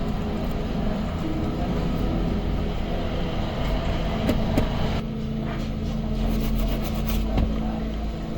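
Steady electrical hum with a hiss behind it, a couple of light clicks about four and a half seconds in, and the hiss thinning about five seconds in.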